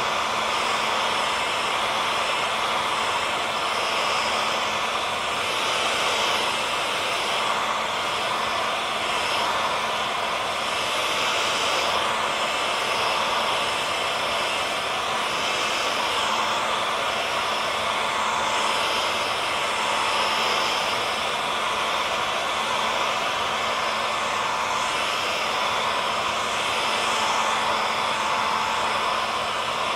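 Electric hair dryer running steadily: an even rush of blown air with a constant motor whine running through it.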